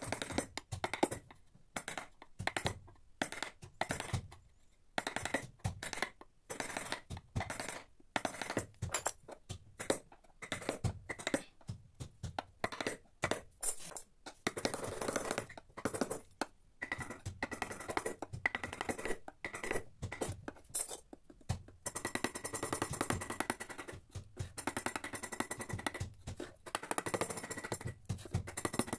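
Wooden mallet tapping a steel carving chisel into teak in quick, uneven strikes, cutting away wood for a relief carving.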